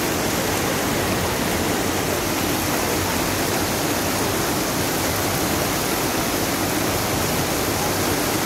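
Steady rush of floodwater flowing fast down a street, with no breaks or distinct events.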